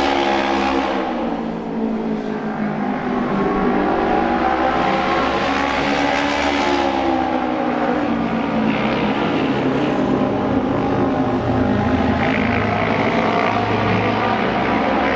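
Japanese Autorace racing motorcycles' 600 cc twin-cylinder engines running hard in practice laps. Several engines sound at once, and their pitch rises and falls as the bikes power through the turns and down the straights.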